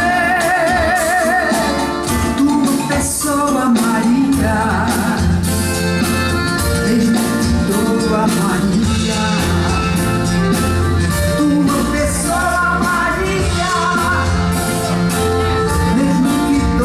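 Live band playing Brazilian popular music at a sound check, with a steady drum beat and bass. A vocalist sings with vibrato near the start and again later.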